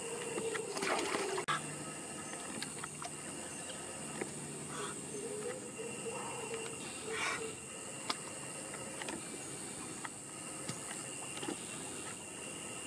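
Steady high-pitched insect chorus, with scattered soft ticks and two brief noisy bursts, about one second in and about seven seconds in.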